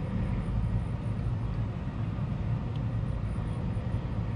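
Steady low outdoor rumble with a faint underlying hum, with no distinct event.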